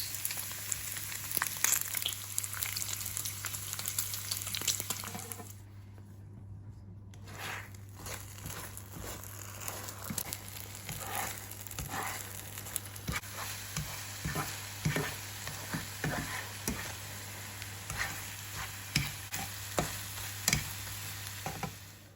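Egg and bacon frying in a pan: a steady sizzle with many crackles and pops. The sizzle cuts out briefly about six seconds in.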